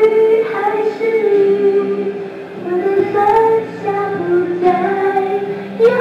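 A woman singing karaoke in a high voice over a backing track, the melody moving through several held notes.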